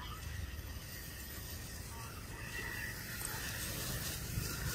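Steady low rumble of outdoor background noise with a faint hiss, and no distinct calls or knocks.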